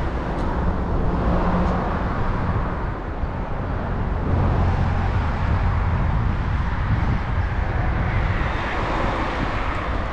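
Steady outdoor noise: a low rumble with a hiss over it, swelling and easing a little.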